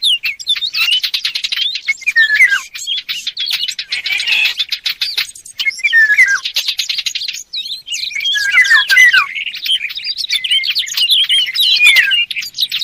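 Mixed bird-call recording of Eurasian golden orioles and warblers ('fig birds'): dense, fast twittering and chattering with short falling whistles, in runs broken by brief gaps.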